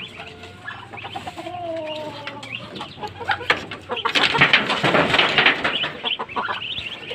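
Chickens clucking, with a dense clatter of short sharp sounds for about two seconds, beginning about four seconds in.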